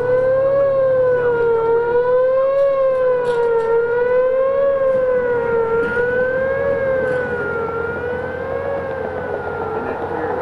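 Outdoor civil-defense warning siren sounding a sustained wail for a tornado warning, its pitch wavering gently up and down about every two seconds. A low steady hum lies underneath.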